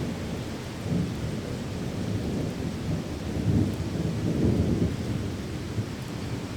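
Steady rain with a low, rolling rumble of thunder that swells louder a little past the middle.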